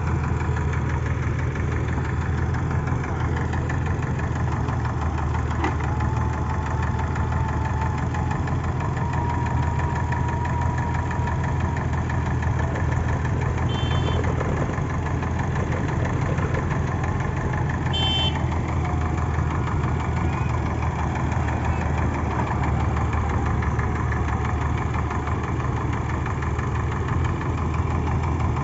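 A heavy machine's diesel engine running steadily at a low, even speed. Two brief high chirps sound over it, one about halfway through and one a few seconds later.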